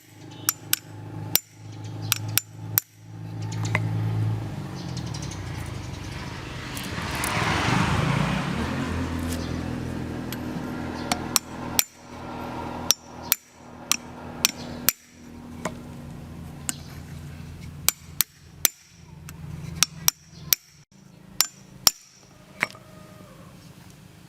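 Hammer and hand tools striking metal engine parts: irregular sharp knocks and taps, a few at a time, over a steady low hum, with a louder rushing noise swelling and fading about seven to nine seconds in.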